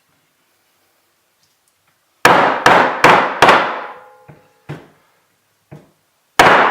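Hammer blows knocking at a stuck bearing in a Novatec bicycle wheel hub, the bearing not yet moving. About two seconds in comes a quick run of four loud, ringing metallic strikes, then two lighter knocks and one more loud strike near the end.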